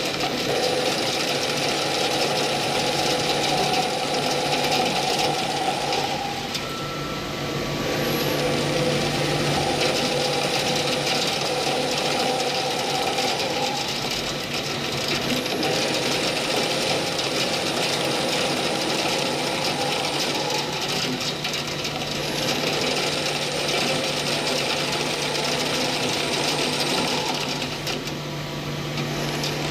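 CNC lathe turning a steel workpiece: a steady machining noise with a high whine over it. It eases off briefly twice, about six seconds in and near the end.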